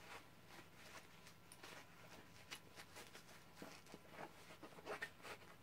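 Faint rustling and soft scuffs of cloth as small fabric baby boots are worked onto a reborn doll's feet, a little busier near the end.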